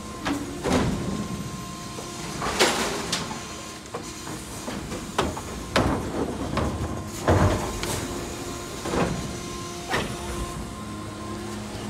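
Electric Mack LR garbage truck with a New Way Sidewinder automated side-loader at work: a steady electric whine under about ten irregular metallic clanks and bangs from the lifting arm and a cart being handled and emptied.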